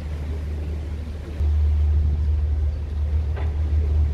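Passenger boat's engine running with a steady low rumble, heard from the open deck beside the helm console, stepping up louder about a second and a half in.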